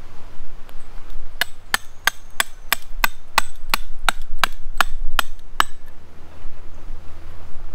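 A metal-headed peg hammer driving a steel hook tent peg into dirt: about a dozen sharp metal-on-metal strikes, roughly three a second, which then stop.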